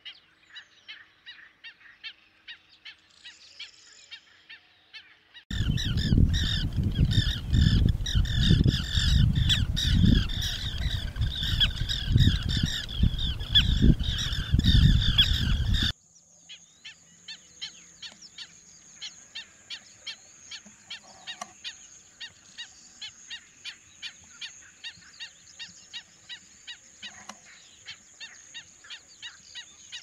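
Wild birds calling: rapid short repeated calls, then from about five seconds in a loud dense flock of overlapping calls over a low rumble, which cuts off abruptly at about sixteen seconds and gives way to quieter rapid calls with a faint steady high whine.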